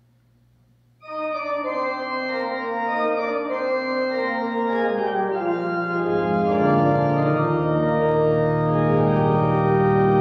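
Church organ playing sustained chords, starting about a second in, with deep pedal bass notes joining about six seconds in. It is the introduction to the entrance hymn as Mass begins.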